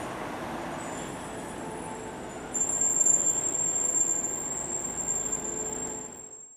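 Parked fire engines running, a steady diesel rumble with a high-pitched steady whine over it that comes in about a second in and grows louder about two and a half seconds in; the sound fades out at the very end.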